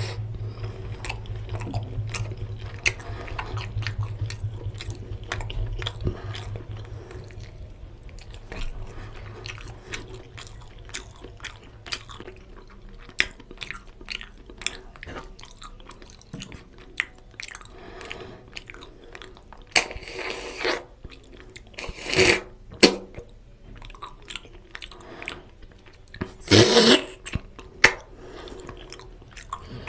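Close-miked chewing and wet mouth sounds of a man eating oily mutton curry and rice by hand, with many small clicks and smacks. Three louder, longer mouth noises come about two thirds of the way through and near the end.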